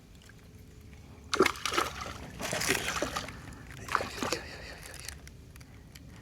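Water splashing in three short bursts as a hooked fish thrashes at the surface while it is pulled in.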